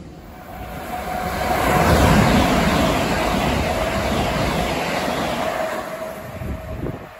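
Heathrow Express Class 387 electric train passing: wheels on rail and a steady electric hum, swelling over the first two seconds, holding, then falling away near the end.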